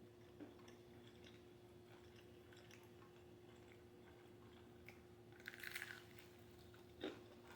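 Faint chewing of a sauce-coated spicy chicken leg: soft mouth clicks, with a brief louder crackly burst about two-thirds of the way in and a light knock near the end. A steady faint hum sits underneath.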